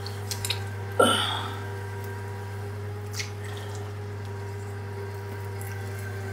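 Wet clay squelching and slapping under the potter's hands on a spinning potter's wheel, with a loud wet slap about a second in, over the steady hum of the wheel's motor.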